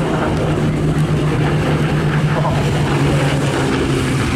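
Rolls-Royce Merlin V12 piston engines of a Spitfire Mk Vb and a Hurricane Mk IIc flying past together, a steady low propeller-aircraft drone.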